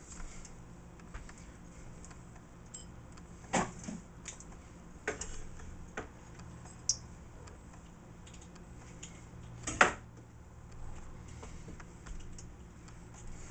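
Scattered faint clicks and a few sharper knocks over a low, steady hum.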